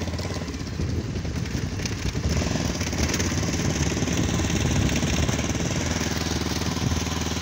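Motorcycle engine running steadily under way on a rough dirt road, with a steady hiss over it; it picks up a little about two seconds in.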